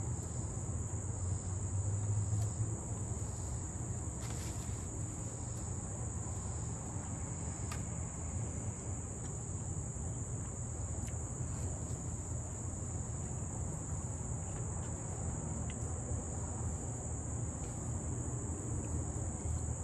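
A steady, high-pitched chorus of insects, a continuous shrill drone, over a low steady rumble.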